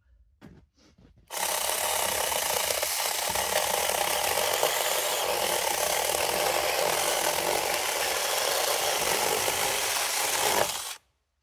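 Zeeksaw battery-powered mini chainsaw with a 6-inch chain starting about a second in and cutting steadily through a hard, dried-out maple log for about nine seconds, then stopping suddenly.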